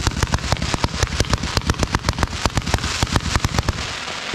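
Multi-tube consumer firework cake firing flaming balls in a rapid string of sharp pops, about seven or eight a second, which gives way to a hissing crackle near the end.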